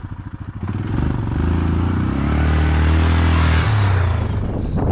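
An engine running with an even pulsing beat at idle, then revving up about a second in, holding high, and easing back down near the end.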